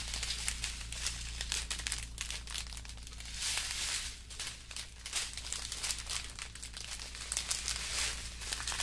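Small plastic bags of diamond-painting drills crinkling irregularly as they are folded and handled.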